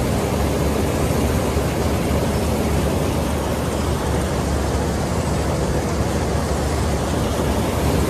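Combine harvester running steadily while cutting ripe paddy: an unbroken, loud drone of the engine and the threshing machinery, with a deep low rumble under a hiss.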